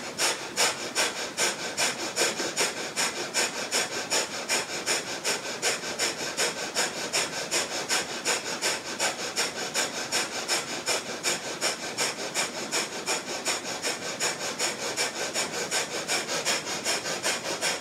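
Breath of fire, the rapid Kundalini pranayama breath: short, forceful exhales pumped out through the nose in a steady rhythm, about two and a half a second, each a sharp puff of air.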